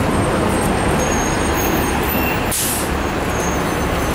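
Steady city traffic noise from large road vehicles passing, with a short high hiss about two and a half seconds in.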